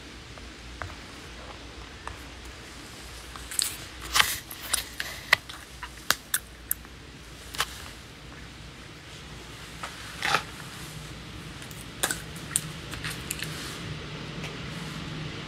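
Handling noise: a scatter of short, sharp clicks and taps close to the microphone, in two clusters, over a steady faint hum.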